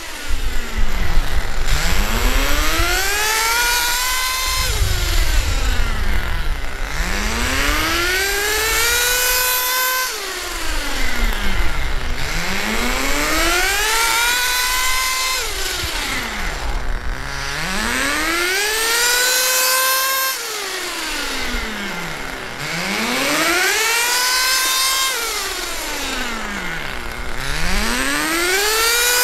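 Vertex .18 two-stroke nitro engine in a 1/10 scale RC truck, revving up and easing off over and over, its pitch climbing and falling every few seconds. This is the fifth break-in tank: the engine is run rich, brought up slowly toward full throttle, then released.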